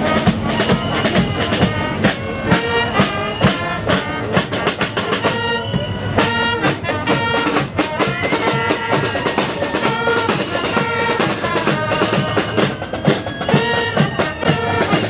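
Brass and drum music: trumpets and other brass playing a tune over a steady bass-drum beat.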